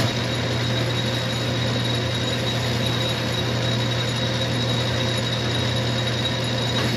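Metal lathe running with a steady hum and a faint high whine as the cutting tool takes a facing cut on the end of a Loctited-in crank pin. The cut is loosening the pin, whose blue Loctite bond fails and lets it slip.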